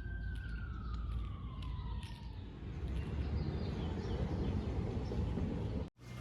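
A single siren-like tone, held high and then gliding slowly down in pitch over about two seconds, over a steady low rumble.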